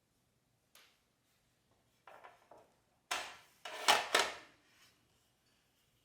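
Kitchen handling sounds: a light click, then scraping, and a clatter with two sharp knocks of baking equipment or dishes being set down.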